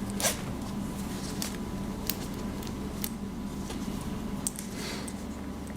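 Small clicks and rustles of a hoodie's metal zipper pull and its paracord puller being handled, a few scattered ticks, the clearest just after the start, over a steady low hum.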